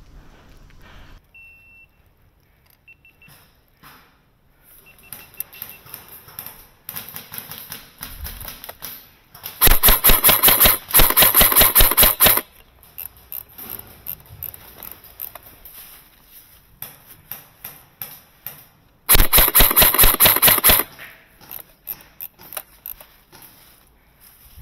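Airsoft electric rifle firing full-auto bursts: a rapid, even string of snapping shots for about three seconds starting about ten seconds in, with a brief break, then another burst of about a second and a half near the end. Between the bursts there are fainter scattered ticks and rustles.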